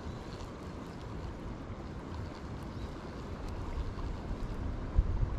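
Steady outdoor noise with wind on the microphone, which gusts in a few low rumbling buffets about five seconds in.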